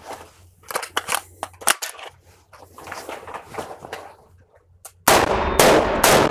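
Light clicks and clacks of rifle handling, then about five seconds in a rapid string of AR-15 rifle shots from two shooters, loud and echoing in an indoor range.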